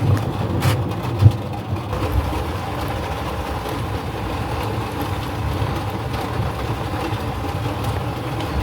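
Thunderstorm: low thunder rumbling, with two sharp cracks in the first second and a half, then a steady rumbling noise.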